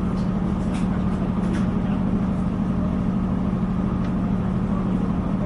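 Steady low drone of a diesel passenger train running, heard from inside the carriage, with a few faint clicks.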